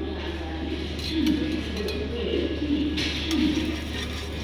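Metal spatula scraping and clinking on a large flat iron griddle, with a few sharp clicks about a second in and again near three seconds, over voices in the background and a steady low hum.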